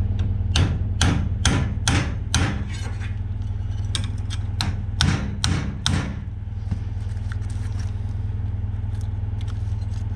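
A hammer striking the steel frame of a vintage Volkswagen buggy at a freshly welded crack: two runs of about five sharp metal strikes with a short pause between, ending about six seconds in. A steady engine hum runs underneath.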